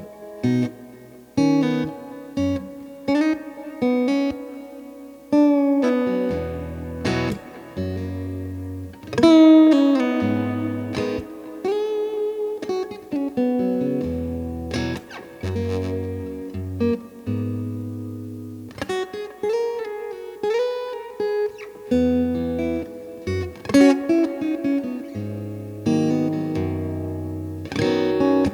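Guitar played through a Wampler Ethereal delay and reverb pedal: picked single notes and chords ringing into the effect, with a few notes bent or slid in pitch.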